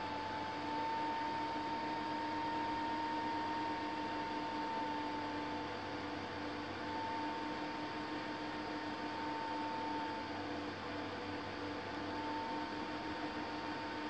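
Steady hum and hiss: an even noise bed with a constant mid-pitched whine held throughout and no other event.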